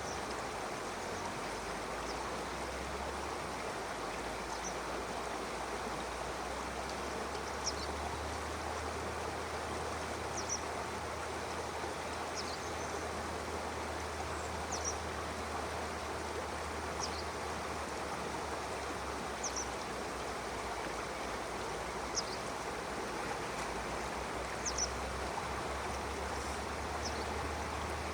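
A stream flowing steadily, with a bird's short, high chirp repeating every two to three seconds over the running water.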